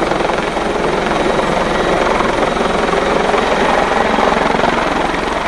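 Helicopter in flight: the main rotor beats in a steady, rapid chop over the engine noise.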